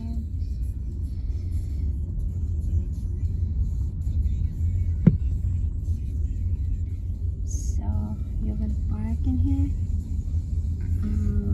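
Low steady rumble of a car's road and engine noise heard inside the cabin as it drives slowly, with one sharp click about five seconds in and faint voices near the end.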